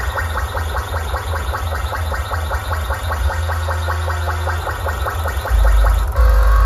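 Large DJ sound system playing electronic music very loud: rapid repeating synth notes over a heavy, continuous sub-bass. The sub-bass grows much louder about five and a half seconds in.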